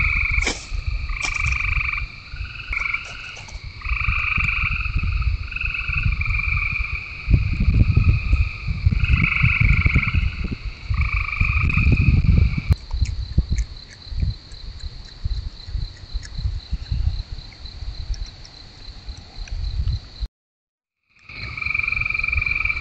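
Frogs calling in a chorus, repeated calls of a second or two each, over a rough low rumble that is the loudest part. The sound cuts out completely for about a second near the end.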